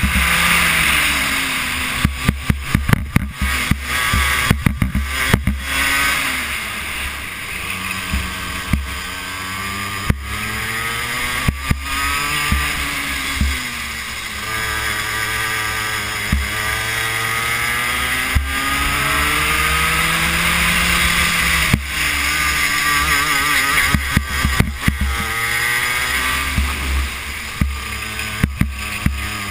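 Racing kart engine heard from on board, its revs climbing on the straights and dropping back into the corners, over and over. Wind buffets the camera's microphone with a low rumble and crackling gusts, strongest in the first few seconds and again near the end.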